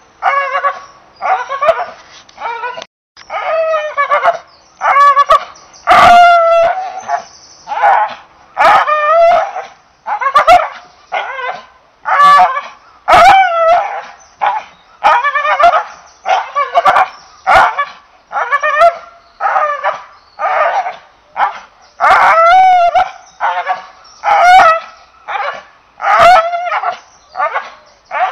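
English Bull Terrier giving excited yelps and whines, pitched calls that rise and fall, about one a second, with occasional sharp knocks.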